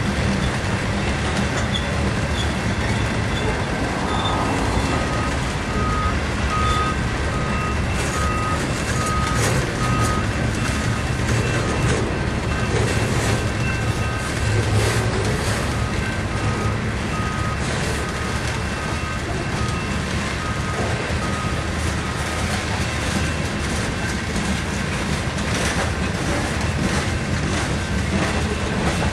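Freight train cars rolling past close by: a steady rumble and rattle of steel wheels on the rails with scattered clanks. A repeating high beep, about three beeps every two seconds, starts about four seconds in, pauses briefly and stops a few seconds past the middle.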